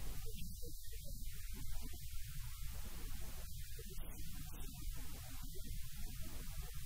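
A steady low electrical mains hum.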